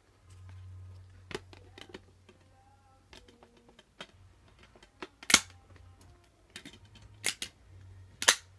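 Sharp plastic clicks and snaps of discs being pressed back into plastic disc cases and the cases being handled, the loudest snap about five seconds in and several more near the end, over a faint low hum.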